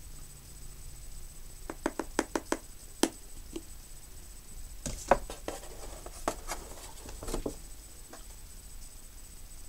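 Light clicks and taps of a powder compact and makeup brush being handled: a quick run of about five clicks about two seconds in, a sharp click a second later, then more scattered clicks with soft rustling.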